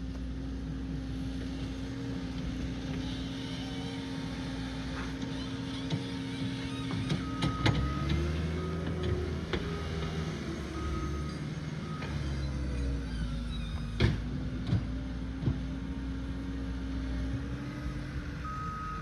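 Skid steer loader engine running steadily, revving up for a few seconds midway, with its reversing alarm beeping in spells partway through and again near the end. A few sharp knocks, the loudest about two thirds of the way in.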